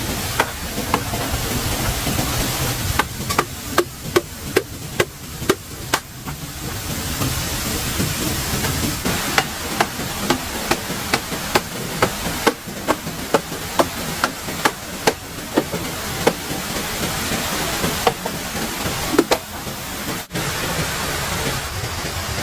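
Repeated sharp blows of a hand tool, about two to three strikes a second, in two runs with a pause between, over a steady rushing hiss.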